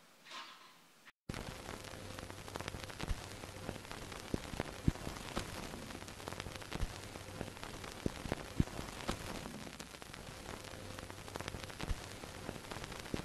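Crackling static sound effect: a steady hiss with scattered random pops and clicks over a faint low hum, starting suddenly about a second in.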